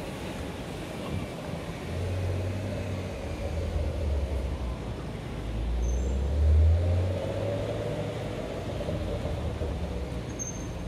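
City street traffic: a low rumble of passing vehicles that swells to its loudest about six seconds in, then eases.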